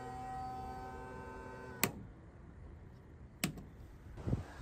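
Small electric bilge pump motor humming steadily while being tested on new wiring, then stopping with a click just under two seconds in; a second click follows about a second and a half later.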